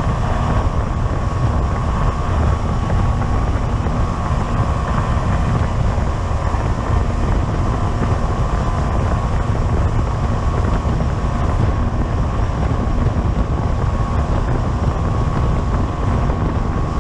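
Steady engine drone with heavy wind noise on the microphone, unchanging throughout, as from a boat or vehicle under way.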